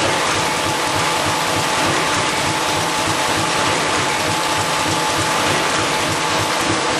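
Machinery running with a dense, continuous mechanical rattle like fast ratcheting gears, over a faint steady whine.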